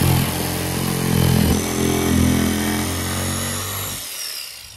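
Black & Decker jigsaw running as it cuts a curved line through plywood, its motor pitch shifting slightly under load. The saw stops about four seconds in and winds down.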